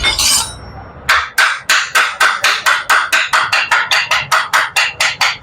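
A single knock, then a rapid, even series of sharp metallic taps, about five a second, from work on a motorcycle's removed starter-motor assembly.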